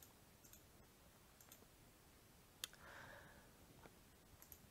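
Near silence with a few faint computer mouse clicks, the sharpest about two and a half seconds in.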